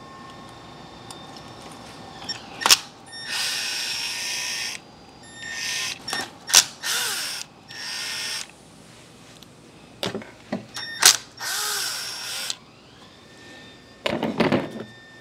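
Cordless power tool, such as an electric ratchet or screwdriver, running in four short bursts of a second or so while the throttle body's bolts are loosened. Sharp clicks and knocks of tool and metal parts come between the bursts.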